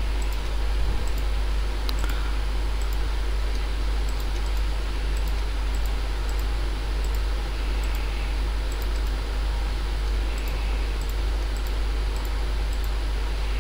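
Steady low electrical hum with an even hiss behind it, the background noise of a computer recording setup, with a few faint clicks.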